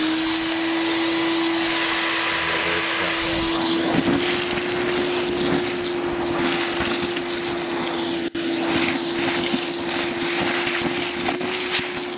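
Shop vac running steadily at one pitch, sucking rock powder and loose shale out of a drilled post hole.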